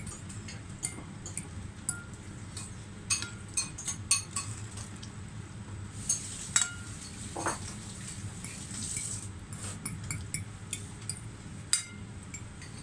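Spoons and forks clinking and scraping on plates and bowls as several people eat: irregular light clinks throughout, over a steady low hum.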